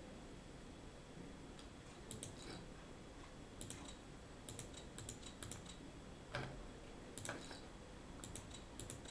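Faint computer mouse clicks, some single and some in quick runs of two or three, at irregular intervals: chips being clicked onto an online blackjack bet.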